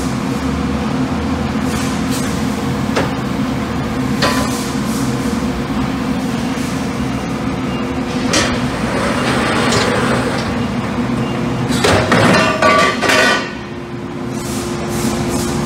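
Steady machine hum with a few sharp metallic knocks as a steel gas cylinder is handled on a cylinder blaster's lift. About twelve seconds in comes a louder ringing clatter, lasting about a second, as the cylinder rolls onto the machine's rollers, and a steady hum carries on after it.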